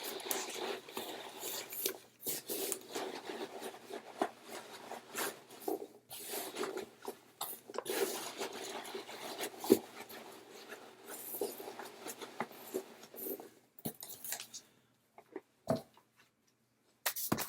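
Hands rummaging through the contents of a subscription box: steady rustling and scraping with small clicks and clatters, thinning out to a few single knocks near the end.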